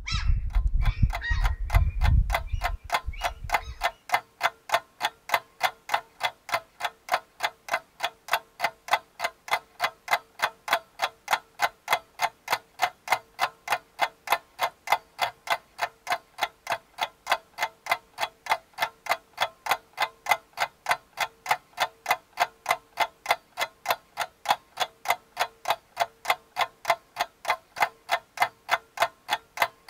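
A clock ticking steadily, about two to three ticks a second. For the first few seconds a low rumble lies under the ticks, then stops.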